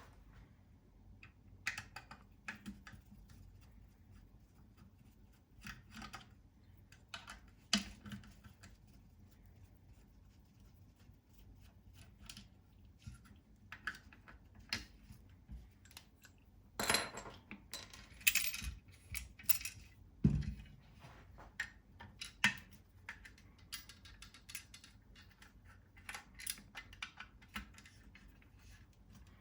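Irregular clicks and clinks of small metal rifle parts and hand tools being handled and set down: screws, nut plates, rails and a hex driver. A cluster of louder knocks comes a little past the middle.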